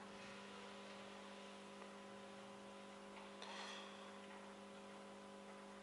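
Near silence with a faint steady hum: a low tone with several higher overtones. A brief soft noise comes about three and a half seconds in.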